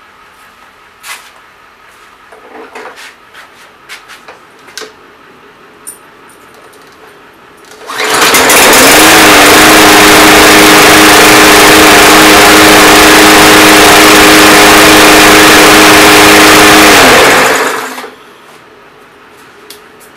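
Briggs & Stratton single-cylinder lawn mower engine starting about eight seconds in after a few light clicks and knocks, rising quickly to a steady, loud run for about nine seconds, then shut off and winding down. It runs now that the throttle butterfly in its plastic carburetor, found fitted the wrong way round, has been put right.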